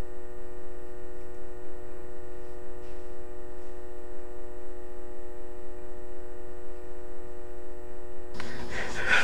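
A steady, unchanging hum with many overtones. Near the end a louder rush of noise comes in.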